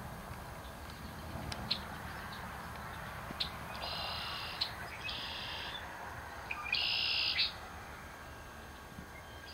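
High buzzy trills from a calling animal, each under a second long, three in a row with a few brief high chirps between them; the third, a little past halfway, is the loudest.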